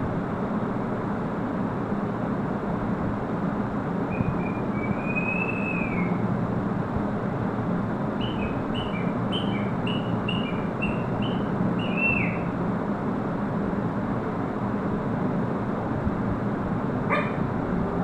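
African grey parrot whistling: one drawn-out whistle that rises and falls about four seconds in, then a quick string of about a dozen short whistled notes, over a steady background hum. A sharp click comes near the end.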